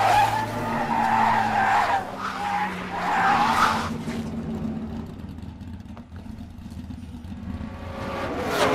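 Racing car and tyre squeal sound effect: the squeal wavers in high tones for about the first four seconds, then dies down to a low rumbling noise, with a rising sweep near the end.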